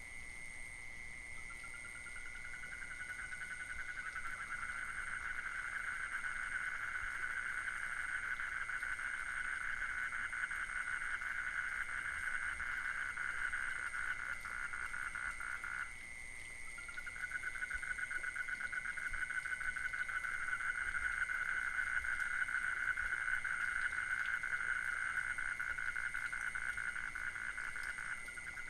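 Frogs at a jungle pond calling in a fast, rapidly pulsed trill that starts shortly after the beginning, stops for about a second around the middle, then picks up again, over a steady high-pitched buzz.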